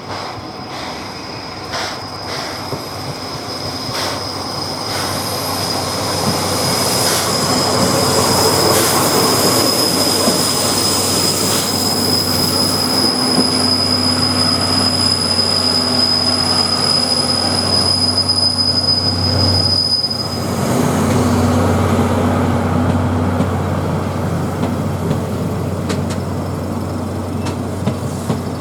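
The SL Taiju steam-hauled train running past, its rumble building over the first several seconds, with a steady high-pitched wheel squeal that holds for most of the pass and stops about two-thirds of the way in. A few sharp clicks sound in the first seconds.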